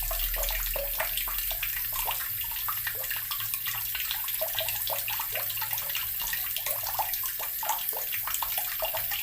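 Water from a tap running into an earthen barrel, gurgling steadily with many quick bubbling blips.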